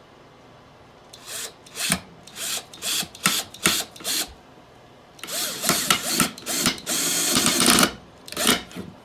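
Power drill run in a series of short bursts, then in a longer run of a few seconds, and one more short burst near the end: a Phillips bit driving a wood screw into its pilot hole.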